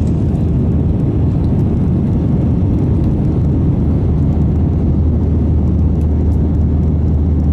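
Jet airliner's engines and airflow heard inside the passenger cabin during the climb after takeoff: a steady rushing noise over a constant low hum.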